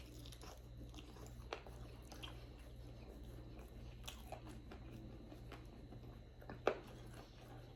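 A person chewing food close to the microphone, with a few short wet clicks from the mouth, the loudest near the end.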